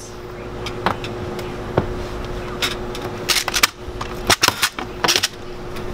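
Antique hand-operated candy chopper's metal blades clacking down through a rope of hard candy, a string of sharp clacks with candy pieces snapping off, over a steady hum.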